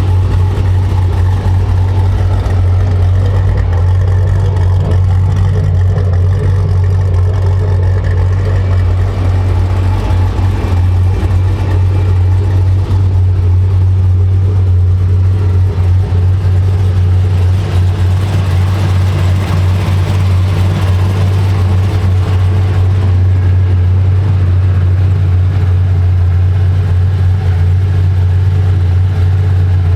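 Supercharged GM LSA V8 of a 2010 Chevrolet Camaro 2SS running while the car is driven: a deep, even drone that holds nearly the same pitch throughout.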